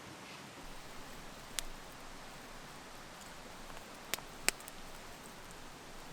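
Campfire crackling with steak cooking over it: a soft steady hiss with three sharp pops, one about a second and a half in and two half a second apart a little after four seconds.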